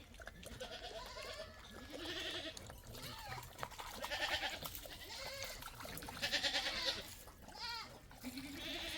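Goats bleating: several separate wavering calls, one after another, from more than one animal.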